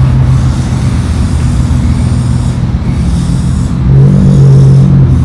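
Volkswagen Golf R32's 3.2-litre VR6 running at low revs through an aftermarket DP exhaust, a low steady exhaust rumble as the car rolls slowly forward. The rumble grows louder about four seconds in.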